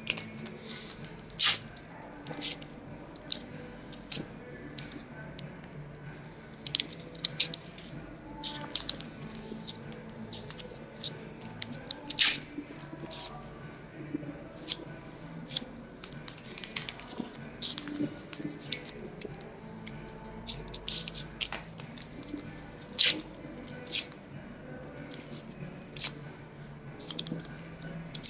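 Paper sachets of gel-polish remover wraps being torn open, crinkled and folded around fingertips: an irregular string of sharp crackles and rustles, with a few louder rips spread through.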